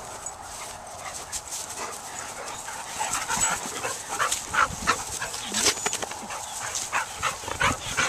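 Dogs giving short, repeated yelps and whines as they run and play, the calls coming more often and louder from about three seconds in.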